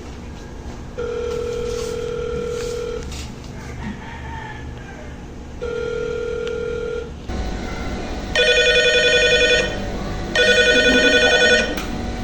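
A telephone call ringing through: two long, steady tones, then two louder trilling electronic rings in quick succession before the call is answered.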